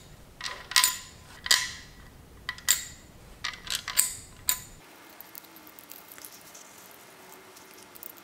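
A run of light metallic clinks and taps, some with a brief ring, as small metal parts are handled and fitted onto a car's ABS module; they fall in the first half and stop a little before the middle.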